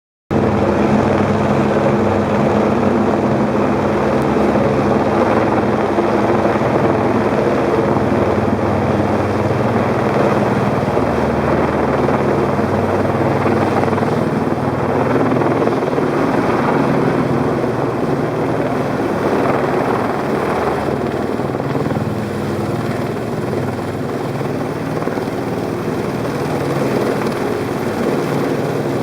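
Helicopter hovering to set down a longline sling load: a steady, loud rotor beat and engine noise, dipping slightly in level past the middle.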